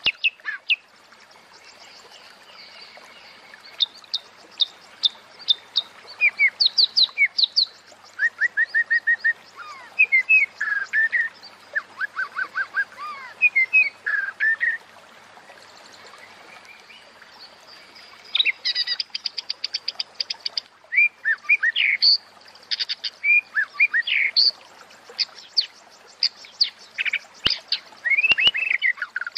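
Female white-rumped shama (murai batu) calling: bursts of sharp chirps, short slurred whistles and rapid ticking chatter, with brief lulls. These are the female calls used to bring males into breeding condition.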